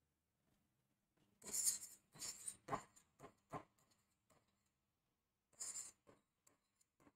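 Stylus writing on a touchscreen display: a string of short strokes as digits are written out, with a pause about two-thirds of the way through.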